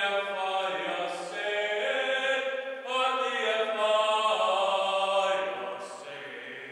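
A single voice singing unaccompanied, in long held notes, deep underground in a mine. The closing note fades away near the end.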